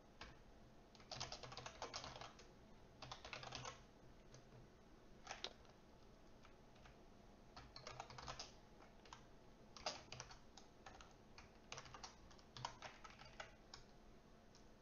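Faint computer keyboard typing in short bursts of keystrokes with pauses between them.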